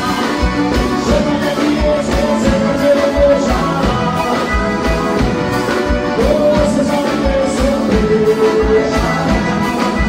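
Live forró band playing through the PA: a Roland digital accordion carrying the melody in long held notes over a steady bass-drum beat, with a male voice singing.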